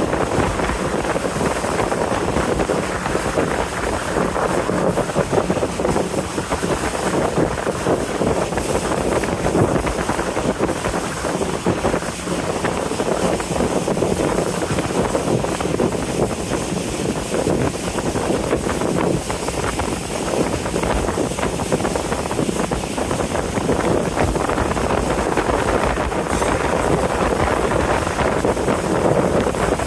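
A boat under way on a river: a steady rush of wind across the microphone and water along the hull, over the boat's low, even engine drone.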